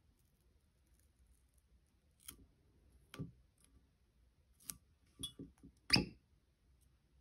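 Handling noises while a paper seal strip is worked off a whisky bottle's cork stopper: about half a dozen separate clicks and small knocks, the loudest a fuller knock near the end.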